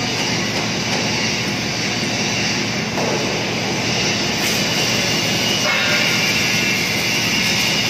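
A 2-ton welding positioner's electric gear motor and gear drive running steadily as they tilt the worktable, with a continuous mechanical noise.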